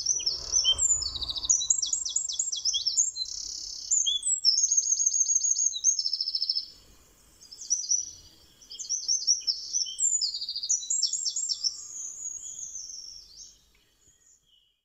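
A small songbird singing in long, high-pitched phrases of rapid trills and twittering repeated notes, with two short pauses partway through, fading out near the end.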